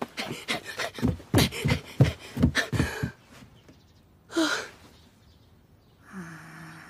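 A boy's voice panting hard in about eight quick breaths, then one short gasp. Near the end comes a short, steady muffled hum from a girl gagged by a bamboo muzzle.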